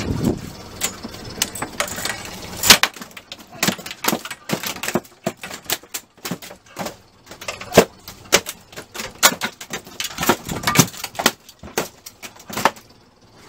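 Irregular sharp knocks and slaps: a freshly landed bull mahi-mahi thrashing against a boat's fiberglass cockpit floor while pinned with a gaff.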